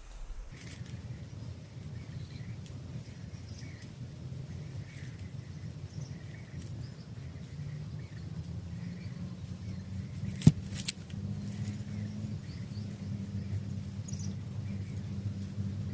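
Faint, scattered short bird chirps over a steady low hum, with a sharp click about ten seconds in.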